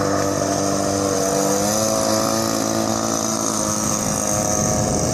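A 26cc two-stroke petrol engine of a radio-controlled boat running steadily at speed, its pitch dipping slightly about a second and a half in, then turning rougher and less even near the end.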